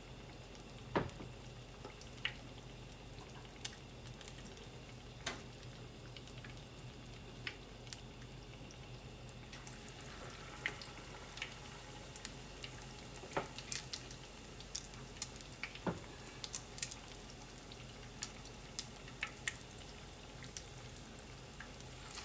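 Cornstarch-and-egg battered chicken frying in hot oil: a faint steady sizzle with scattered sharp pops and crackles, coming more often in the second half. A couple of louder knocks, about a second in and again later.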